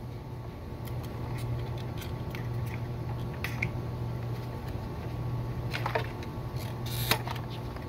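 Flat screwdriver prying at the plastic clips of a Toyota Corolla fuel pump module, giving scattered small plastic clicks and scrapes, with two sharper clicks in the second half. A steady low hum runs underneath.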